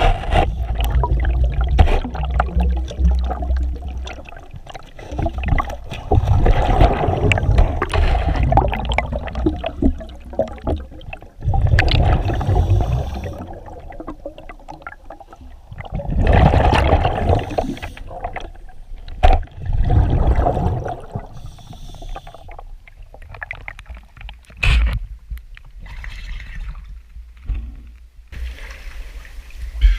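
Water gurgling and sloshing close by in irregular surges every few seconds, as a cave diver moves through a flooded, muddy sump passage.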